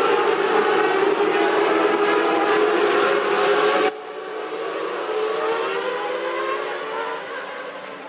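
Formula One cars' V10 engines at high revs, loud and steady, cutting abruptly about four seconds in to a quieter engine note whose pitch slowly rises as it fades.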